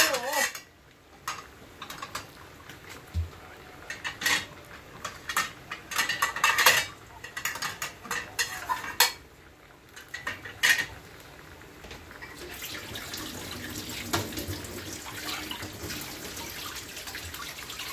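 Metal cookware and utensils clinking and knocking in a home kitchen, then from about twelve seconds in a steady watery hiss, from a pot coming to the boil or a running tap.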